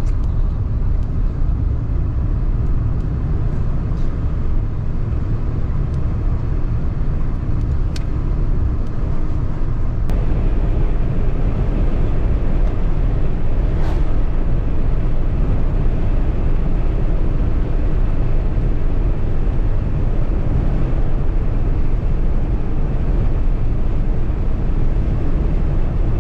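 A car driving steadily, its road and engine noise a constant low rumble, with a few faint ticks.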